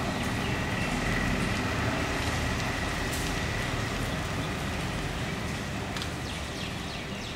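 Heavy rain falling steadily, with a low rumble underneath and a faint steady high tone.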